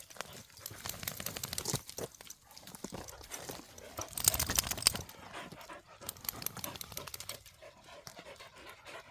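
Border collie panting excitedly in quick breathy puffs, with a louder rush of noise about four seconds in.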